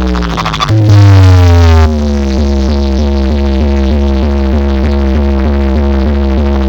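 Electronic DJ remix music played very loud through a large box-speaker sound system: a rapidly pulsing synth whose notes glide downward again and again over steady heavy bass. About a second in, a much louder bass hit lasts about a second.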